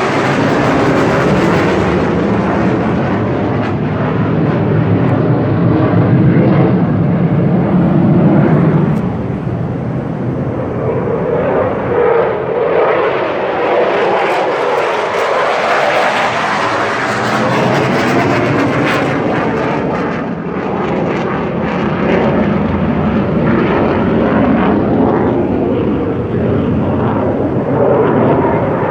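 Fighter jet engine noise, loud and continuous, swelling and easing as the jets pass, with a sweeping whoosh that rises and falls in pitch.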